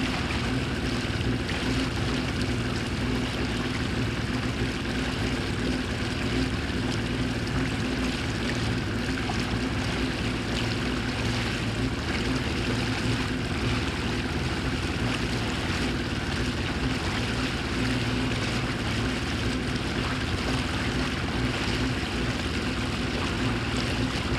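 Motorboat engine running at a steady speed, with a hiss of water and wind.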